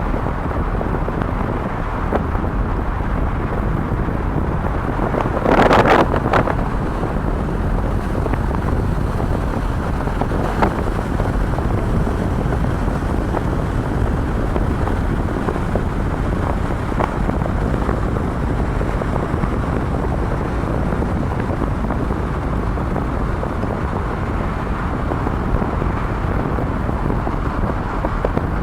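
Strong wind buffeting the microphone over a constant low rumble, with one louder gust-like blast about six seconds in.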